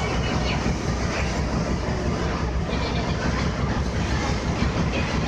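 Steady low rumble of a passenger ferry under way, its engines running with wind and water noise over the deck.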